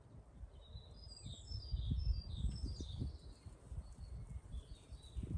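Small birds chirping and singing, many short high notes one after another, over an uneven low rumble.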